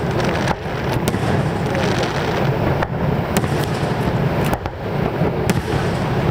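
Aerial fireworks shells bursting: a handful of sharp bangs at uneven intervals over a steady low rumble.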